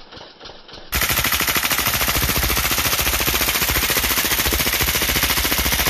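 A drum-fed firearm firing on full auto: a faint rapid patter for about the first second, then one long, loud continuous burst of about five seconds.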